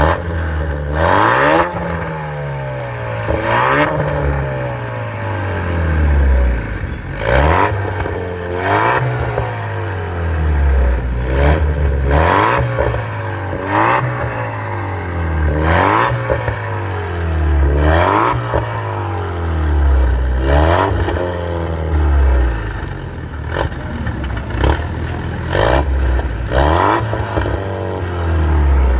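Range Rover Sport's exhaust as the engine is revved in about a dozen short blips, each climbing in pitch and falling back to idle.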